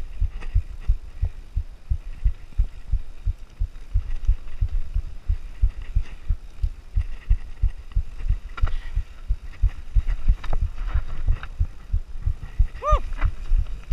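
Nukeproof Mega downhill mountain bike riding fast over rough trail: a dense, irregular run of low thumps and knocks as the bike and camera jolt over the ground. A brief pitched squeal comes near the end.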